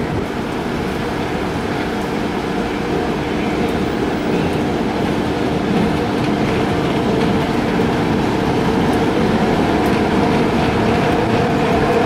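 The coaches of an Indian Railways express train running away over the rails: a steady noise of wheels on track with a held hum, mixed with falling rain.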